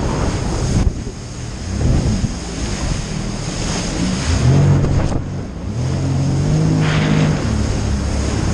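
Jet ski riding fast through ocean chop: wind buffets the microphone and water spray hisses over it, with the watercraft's engine drone coming through twice in the second half.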